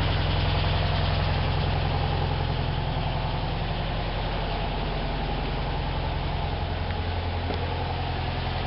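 Volkswagen Karmann Ghia's air-cooled flat-four engine running steadily at idle.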